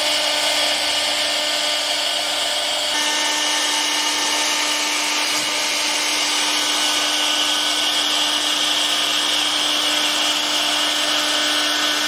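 Spindle of a 1325 CNC wood router carving a relief into a wooden board: a steady whine with the noise of the bit cutting wood, shifting slightly in tone about three seconds in.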